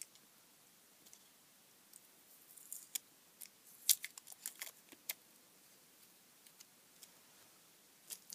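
Small clicks and scrapes of a screwdriver prying an arc lighter's plastic inner chassis out of its metal case, a cluster of them about two to five seconds in and a couple more near the end.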